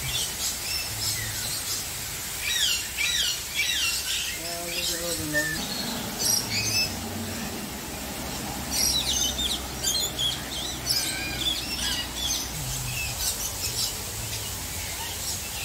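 Several birds chirping and squawking, with overlapping calls. The calls come in clusters of quick, high, falling chirps, and there is a short lower call about four seconds in.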